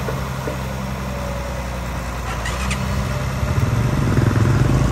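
Diesel engine of a barge-mounted long-reach excavator running steadily, growing louder and heavier about three and a half seconds in as the arm is drawn back.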